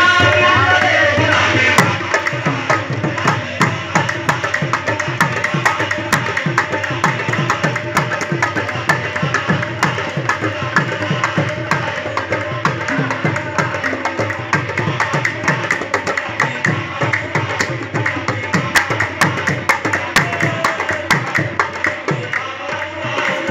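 Qawwali music: a fast, driving tabla rhythm with harmonium accompaniment. The singing breaks off about two seconds in, leaving an instrumental drum passage.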